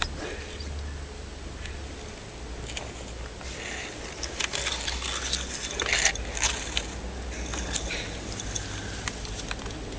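Kitten chewing grass blades right at the microphone: a run of crisp crunches and clicks from about three and a half seconds in to about eight, densest in the middle, over a steady low rumble.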